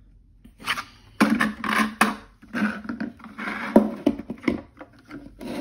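SIG P365 pistol being handled in and out of a black Bravo Concealment hard plastic holster: plastic scraping and rattling with several sharp clicks and taps, the loudest about a second in and again near four seconds.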